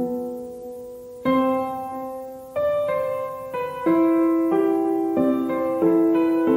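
Background piano music: a melody of notes and chords struck one after another, each ringing out and fading.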